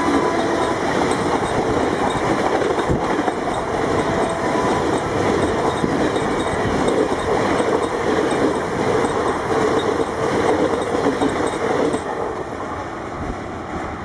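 Passenger coaches of an express train passing close at speed: a steady rumble and clatter of wheels on the rails. The tail of the electric locomotive's horn fades out in the first second, and the rumble eases near the end as the last coach goes by.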